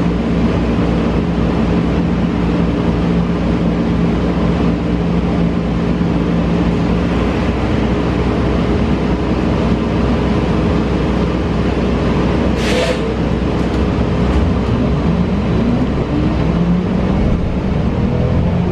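Cabin noise of a New Flyer Xcelsior XE40 battery-electric bus under way: steady road and tyre rumble with humming tones from the electric drive. There is a short burst of air hiss about two-thirds of the way through, and near the end a rising whine from the electric traction motor as the bus accelerates.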